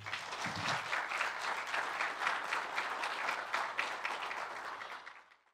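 Audience applauding, a steady patter of many hands clapping that fades away just before the end.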